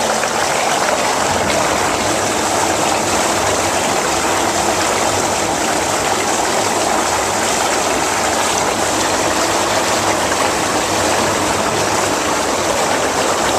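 Jacuzzi Elite series whirlpool tub's jets and air blower running, churning the bath water with a steady rushing of water and air. The tub has just been switched to its variable-speed pulse setting.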